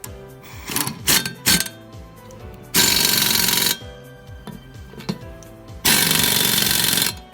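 Impact wrench hammering in two bursts of about a second each, after a few sharp metal knocks, over background music.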